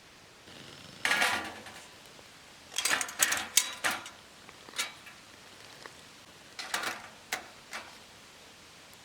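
Metal camp cookware and utensils being handled: several groups of clinks and clatters with brief ringing, the busiest run around three seconds in.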